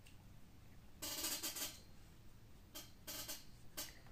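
Faint handling sounds from a CO2 BB pistol magazine: a short scrape about a second in, then a few light clicks near the end.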